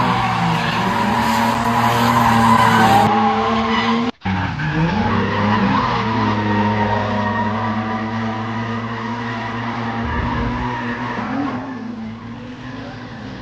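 Drift cars sliding on a track: engines held high in the revs with tyres skidding and squealing. The sound cuts out for an instant about four seconds in, then carries on from inside a car running alongside a red R31 Skyline, the engine note wavering up and down.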